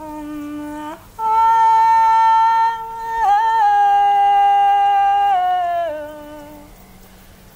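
Slow music of long held notes, one at a time, sliding and stepping downward in pitch, with a hummed, wordless-voice quality and no beat.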